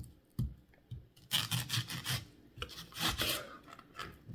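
Kitchen knife cutting through a raw yellow onion on a cutting board: a short knock, then two longer noisy slicing strokes in the middle, with a few fainter knocks.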